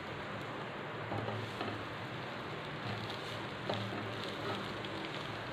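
Butter sizzling in a hot nonstick frying pan as halved burger buns toast cut-side down in it: a steady hiss with a few faint ticks.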